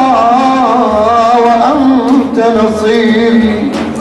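Male voice singing an Arabic religious praise song (madih) in a wavering, ornamented melody, with a low drum beating underneath.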